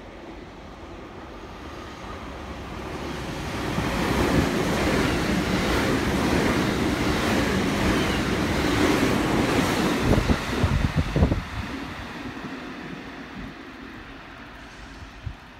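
Electric commuter train approaching and running past along the platform: a rising rush of wheel and motor noise that is loudest in the middle, then fades. About ten seconds in, gusts of wind from the passing train buffet the microphone.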